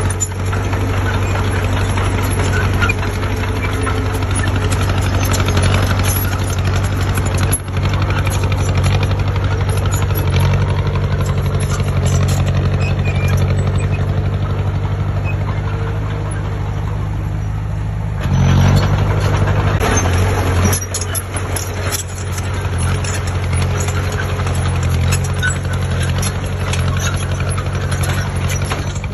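Heavy diesel engine of earthmoving machinery running steadily, with a brief swell in load about two-thirds of the way through.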